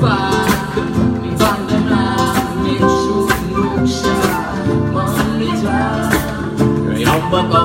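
Live music: a singer with a strummed acoustic guitar.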